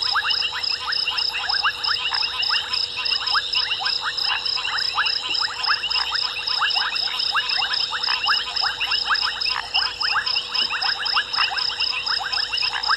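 Night chorus of frogs: many dense, overlapping short clicking calls, with a steady high pulsing tone repeating several times a second above them.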